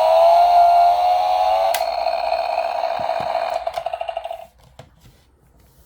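Toy chainsaw's electronic engine sound effect from its small speaker: a buzzy revving tone that, after a click about two seconds in, drops to a pulsing idle and cuts off about four and a half seconds in, followed by a few light plastic clicks.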